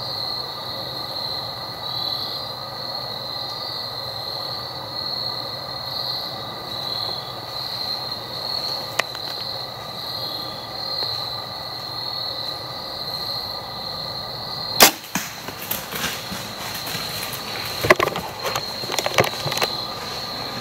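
Steady droning of insects in the woods. About fifteen seconds in, the single sharp crack of a bow being shot at a deer, followed by several seconds of rustling and snapping in leaves and brush.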